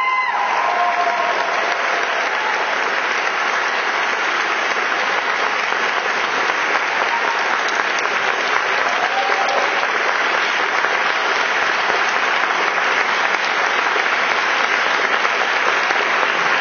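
Audience applauding steadily, a long round of clapping.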